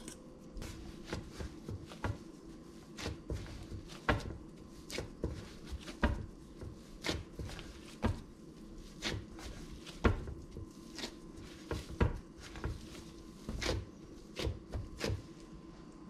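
Gloved hands patting and pressing a mound of mashed potato dough on a wooden cutting board: irregular soft pats and knocks, roughly one every half second to a second, over a faint steady hum.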